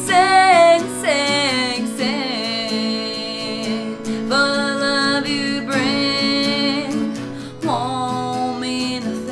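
Acoustic guitar strummed under a voice singing a string of long held notes that slide between pitches.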